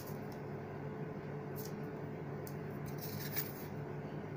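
A plastic dough scraper cutting rolled honey-cake dough around the rim of a glass pot lid: a few faint scrapes and clicks, the most distinct about three and a half seconds in, over a steady low hum.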